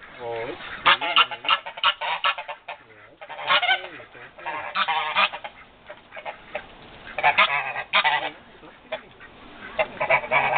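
Domestic geese, a Dewlap Toulouse gander and an African goose, honking in short bursts, with clusters of calls every couple of seconds.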